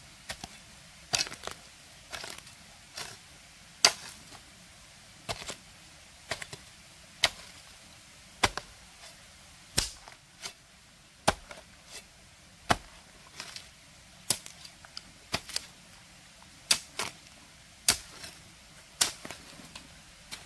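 Hoe blade striking and chopping into wet soil, a sharp strike roughly every second, some as quick doubles.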